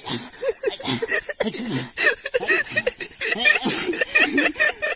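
People's voices talking and chuckling, over a steady high trill of night insects such as crickets.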